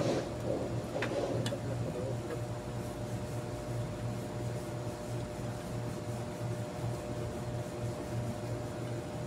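Steady mechanical hum with a low pulsing drone, with a few light metallic clicks and a short rattle in the first two seconds as a car radiator is handled and set down on the concrete floor.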